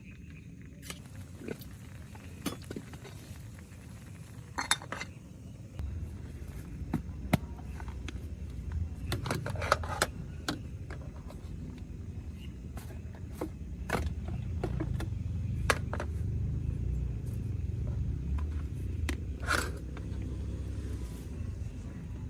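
Scattered clinks and knocks of gear being handled, over a low rumble that grows louder about six seconds in.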